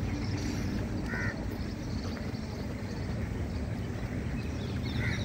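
Steady low background rumble of a busy public space, with two short high-pitched calls, about a second in and again near the end.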